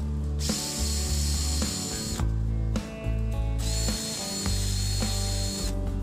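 Cordless drill running in two bursts of about two seconds each, with a high steady motor whine, spinning a drill bit that is being sanded down with abrasive paper. Background music plays underneath.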